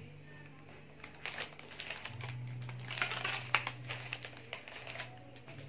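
Purple bouquet wrapping paper crinkling and rustling as hands grip and bind the wrapped stems. The crackly rustles start about a second in and are loudest around the middle.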